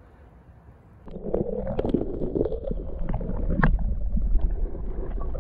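Creek water sloshing and gurgling around a camera held underwater, heard as a muffled low rumble with scattered knocks and clicks, starting about a second in.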